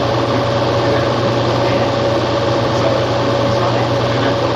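A steady mechanical hum and whir with a constant low drone and a single held tone, unchanging throughout.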